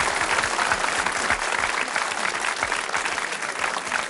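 Crowd applause, many hands clapping steadily, welcoming a guest announced onto the stage.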